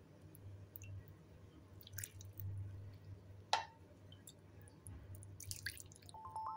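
Wooden spoon scooping tofu soup in a glass dish: soft liquid dripping and squishing, with sharp knocks of the spoon against the dish about two and three and a half seconds in, over a low steady hum. A chime of music starts near the end.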